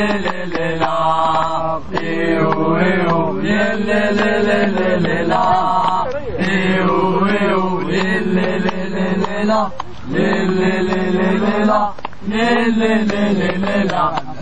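Unaccompanied football ultras chant: voices singing a wordless melody in long held phrases of a few seconds each, with no drums or instruments.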